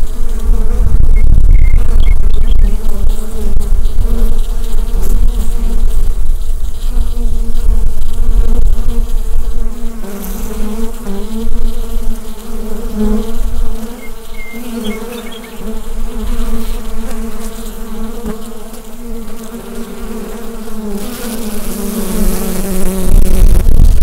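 Bees at a hive buzzing in a dense, continuous, wavering hum of many wings. A deep low rumble sits under it at first and comes back near the end, and the buzz is softer in the middle.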